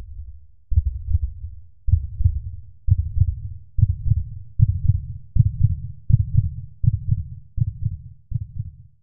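An intro sound effect of deep, low thuds, each dying away, that come faster and faster, from about one a second to nearly one and a half a second.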